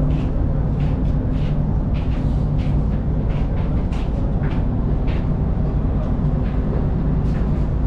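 The ferry's engines running with a steady low drone, overlaid by footsteps about twice a second as someone walks along the steel deck.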